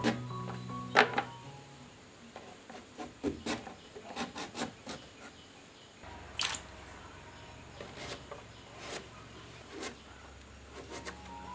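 Breadfruit being drawn across a fixed upright serrated knife blade: irregular scraping, rasping cutting strokes with a few sharp clicks.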